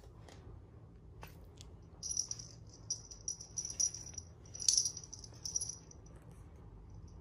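A small jingle bell on a feather cat-teaser toy jingling in a run of short shakes, starting about two seconds in and stopping about a second before the end, loudest past the middle.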